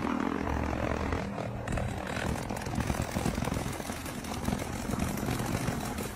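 An engine running with a steady low hum; about a second and a half in, the sound becomes noisier and more uneven.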